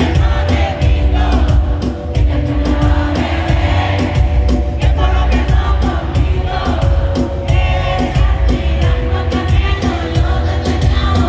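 Live Latin pop concert music heard through a phone's microphone in an arena: a heavy bass beat and a live band under a woman singing.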